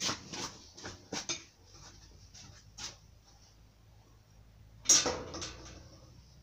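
Scattered light clicks and knocks, then one sharp, loud clatter about five seconds in that dies away within a second.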